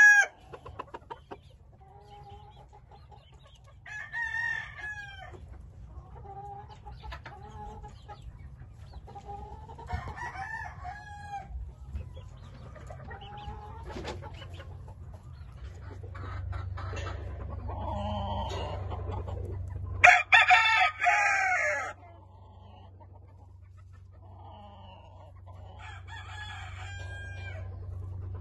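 Game roosters crowing: a loud, close crow ends just as the sound begins and another loud crow comes about twenty seconds in, with other roosters crowing more faintly every few seconds in between.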